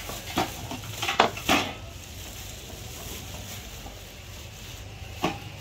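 A few sharp clinks and clatters of pots and metal lids being handled, a cluster of them in the first two seconds and one more near the end, over a steady low hum.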